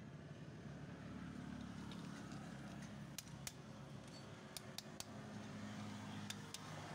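Several sharp metallic clicks and taps as hand tools (pliers and a wooden-handled tool) work a small metal part from a motorcycle lever assembly, bunched in the second half. A steady low hum runs underneath.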